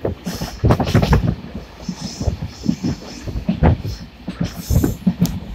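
Passenger train running, heard from aboard: a rumble of wheels on rail with irregular knocks and clatter throughout.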